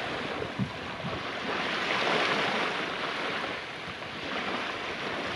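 Steady rushing sea-and-wind noise that swells about two seconds in and eases again near four seconds.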